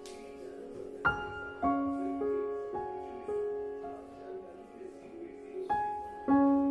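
Background music: a soft piano melody, notes struck one or two at a time and left to ring out.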